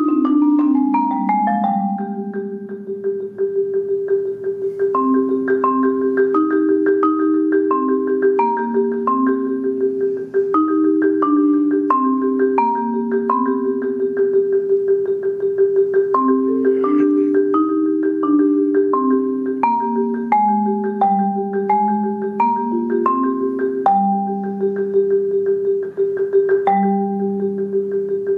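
Yamaha marimba with Acoustalon synthetic bars, played with four yarn mallets in a slow rolled chorale: one middle note is held in a steady roll while lower and upper voices move stepwise around it, changing notes about every second.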